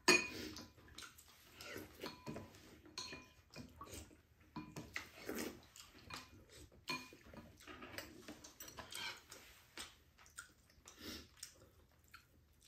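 Two people eating at a table: wet sipping of soup from spoons and chewing of glass noodles, with metal spoons and chopsticks clicking now and then against bowls and the pan.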